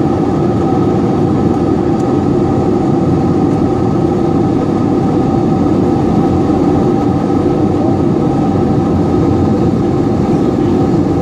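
Steady cabin noise of an Airbus A321-200 in flight, heard from a window seat beside the wing. The engines and the air rushing past the fuselage make a constant drone, with a few steady humming tones running through it.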